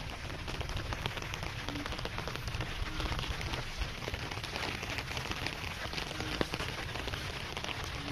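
Steady rain pattering, many fine drop clicks over an even hiss, with a low rumble beneath.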